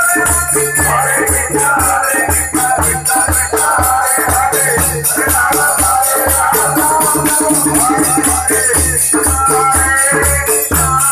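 Kirtan music: karatal hand cymbals clash in a quick steady rhythm over mridanga drum beats, with voices singing the chant through a microphone.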